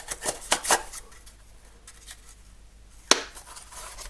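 Metal flashlight sliding down into a fabric holster, with a few quick scraping rustles in the first second and softer handling after. About three seconds in, the holster's magnetic flap closes with a single sharp snap.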